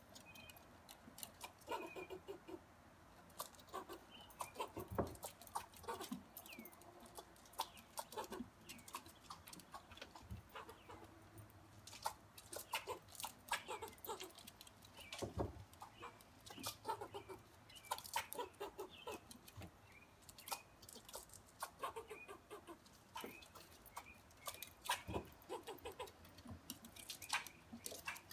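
Tree squirrel giving short, clucking alarm calls over and over in irregular runs, the scolding a squirrel aims at a dog below it.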